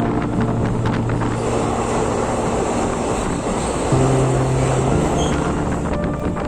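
Steady rushing rumble of a moving passenger train, under background music with long held bass notes that change pitch a couple of times.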